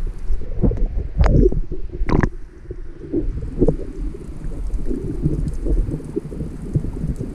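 Muffled sloshing and rumbling of water against a camera held at the surface and then dipped under water. Two sharp splashes come about one and two seconds in.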